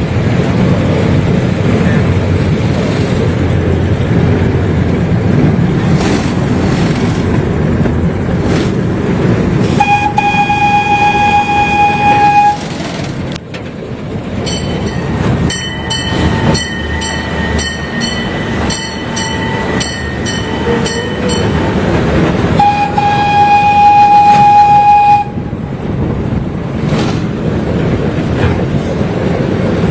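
Zoo ride train running with a steady low rumble and wheel clatter, its horn sounding twice in held blasts of about two and a half seconds each, the second about ten seconds after the first.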